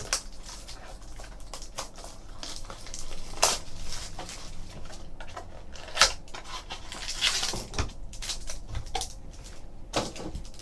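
Trading cards and their packaging being handled on a table: scattered taps, clicks and rustles at irregular intervals.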